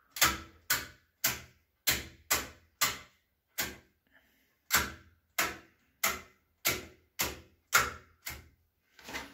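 New EGO rotary hotplate switches on an electric hob clicking through their positions as the knobs are turned step by step: a run of sharp clicks about two a second, with a pause of about a second partway through. Each switch is being run through every setting to test it after rewiring.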